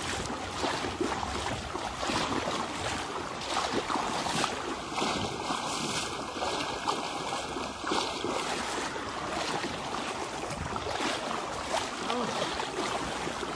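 Floodwater sloshing and splashing around the legs of people wading waist-deep through a flooded road, a steady churning of moving water.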